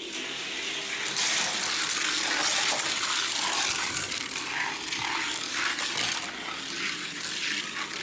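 Two Hot Wheels die-cast stock cars rolling down a plastic gravity race track: a steady rushing hiss of small plastic wheels on the track, with light clicks. It fades near the end.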